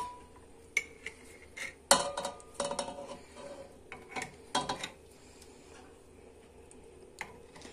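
A metal utensil clinking against a pot and jar as thick syrup is spooned into jars: a series of scattered clinks, some with a short ring, the loudest about two seconds in.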